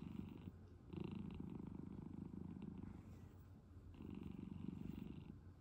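Senior tabby cat purring while being stroked, a low rumble that swells and dips with each breath.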